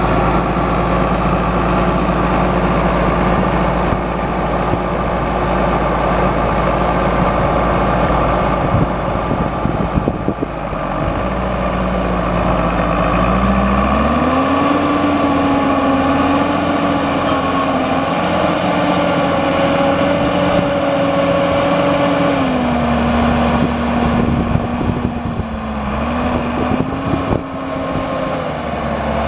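John Deere 8400 tractor's six-cylinder turbo-diesel engine running steadily. About halfway through, the engine speed rises and holds higher, then eases down a little and comes back up near the end.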